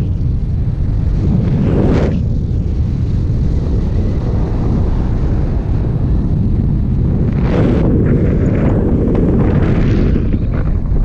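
Wind rushing over the microphone of a paraglider pilot's body-mounted camera in flight: a steady low rumble that swells into louder gusts about two seconds in and again around seven to nine seconds in.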